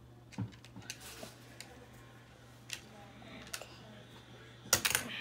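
Small plastic toy pieces clicking and tapping as they are handled and fitted together: scattered light clicks, then a louder quick cluster of clicks near the end.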